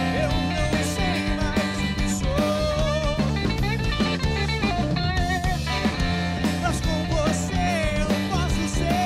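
Live blues-rock band playing: electric guitar carrying a lead line of bending, wavering notes over drum kit and bass guitar.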